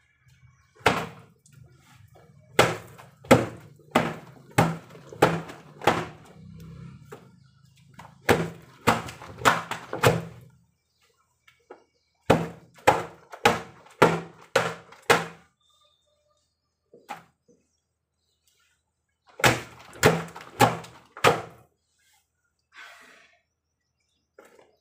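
Wet laundry beaten by hand against a stone washing slab: a run of sharp wet thwacks, about one every half second or so, coming in three bursts with pauses between. A low steady hum runs under the first burst.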